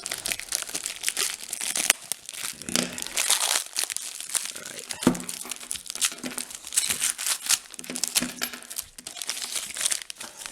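Shrink-wrap plastic packaging being cut and pulled open, crinkling and tearing irregularly, with a sharp knock about five seconds in.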